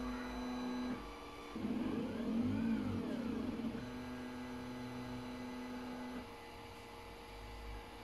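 Stepper motors of a 3D-printer-based pick-and-place machine whining as the head moves: a steady tone, then a pitch that rises and falls as the motors speed up and slow down, then steady again until the motion stops about six seconds in.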